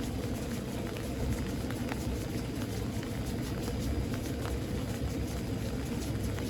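Steady rain in a thunderstorm, with scattered drops tapping close by over a low, steady rumble.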